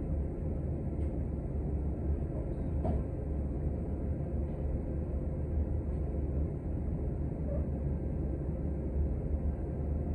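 Steady low rumble inside a city transit bus, with a faint steady whine above it and a few light ticks.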